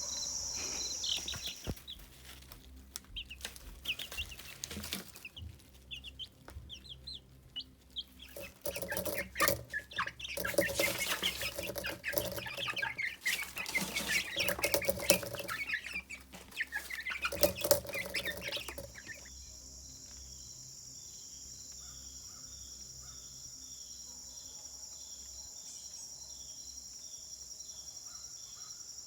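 Chickens clucking and chirping in a flurry of short calls, loudest through the middle. Crickets chirr in a steady high band at the start and again through the last third after the calls stop.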